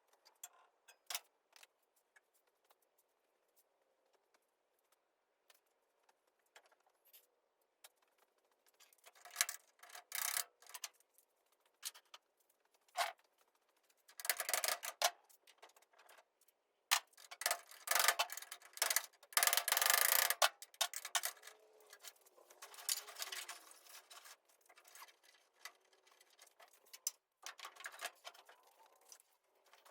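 Hand work on a vehicle dash: scattered sharp clicks and taps, then denser bursts of scraping and rattling from about a third of the way in, loudest near the middle, as dash parts and wiring are pulled and worked loose.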